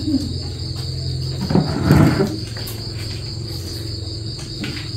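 Insects droning steadily in one high, unbroken pitch, with a short noisy burst about a second and a half in.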